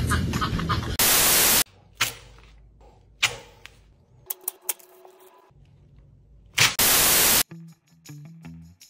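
Two loud bursts of static hiss, about half a second each, with faint scratching and clicks in between. A plucked guitar tune starts near the end.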